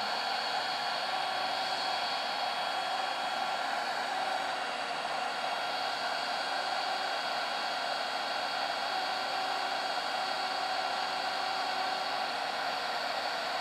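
Ryobi One+ 18V cordless heat gun running steadily, its fan blowing hot air in an even whir with a faint high whine.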